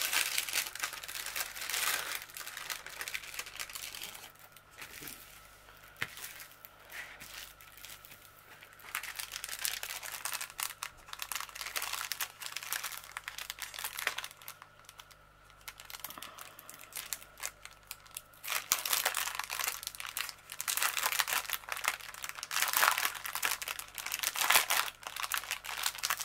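Clear plastic packaging crinkling and rustling as it is handled: a canvas in its plastic sleeve, then a strip of small plastic bags of diamond painting drills being unfolded. The crinkling comes and goes and is loudest and busiest in the last third.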